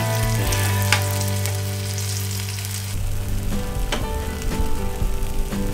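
Frog legs sizzling as they fry in hot oil in a skillet, with a sharp click about a second in and again near the end. Background music with long held low notes plays underneath.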